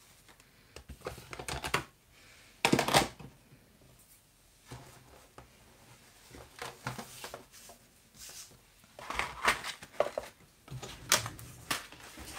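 Plastic die packages and card being picked up and moved around on a craft mat: on-and-off rustling and crinkling with small knocks, loudest about three seconds in.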